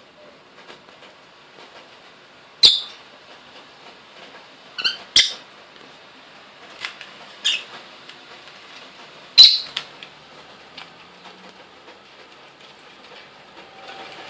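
Lovebird giving about six short, sharp chirps, a couple of them much louder than the rest, over faint crackling.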